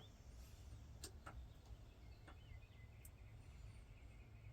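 Near silence: faint room hum with a few soft, brief ticks.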